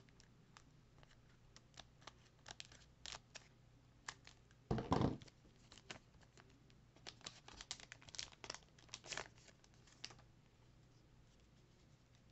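Foil wrapper of a Pokémon booster pack crinkling in the hands and being torn open, with the loudest rip about five seconds in, then a run of crinkles as the wrapper is worked and the cards come out.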